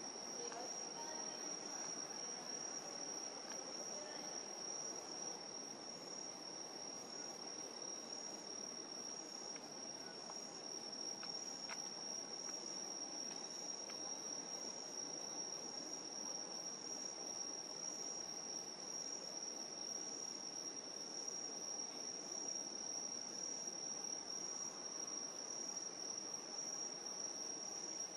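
Night insects chirring: a steady high-pitched trill with a pulsing chirp repeating above it, over faint background noise.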